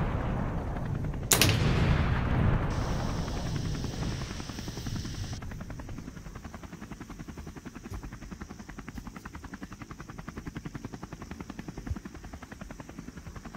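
A sound-effect explosion goes off about a second in and dies away in a long rumble, followed by a rapid, even run of pulses like automatic gunfire that carries on more quietly.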